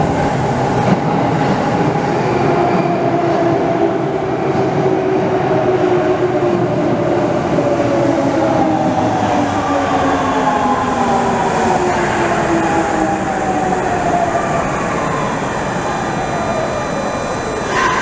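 Subway train running through a tunnel and slowing into a station: a steady rumble of wheels on rail with a motor whine of several tones that falls in pitch as the train brakes.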